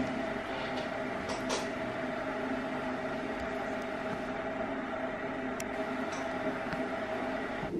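A steady mechanical hum, like a running household appliance, with a few faint light clicks.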